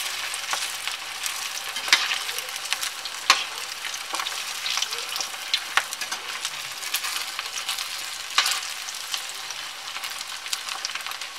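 Breadcrumb-coated rice-and-dal snack balls deep-frying in hot oil in a steel kadhai on a low flame: a steady sizzle full of fine crackling, with a few sharper pops now and then as a slotted spatula turns them.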